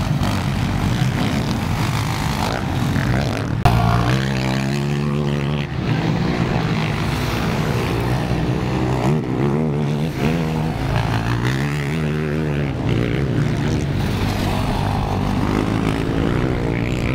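Racing quad (ATV) engines revving hard, their pitch rising and falling as the riders accelerate, shift and back off through the corners.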